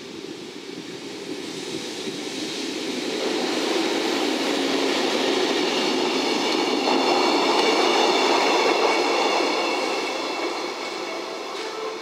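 EF65 electric locomotive with two empty Chiki flatcars running past on the rails, wheels clattering, growing louder to a peak and then fading as it moves away. A steady high whine joins in partway through and dies out near the end.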